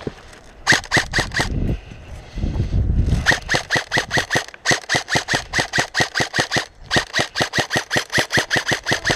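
Airsoft replica gun firing rapid strings of shots, about five a second: a short string of five about a second in, then two long strings from about three seconds in to the end. Low handling or wind rumble between the strings.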